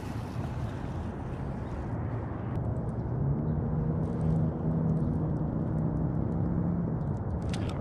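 Low, steady outdoor rumble with a faint motor-like hum that comes in about three seconds in and fades near the end, with a few faint small ticks.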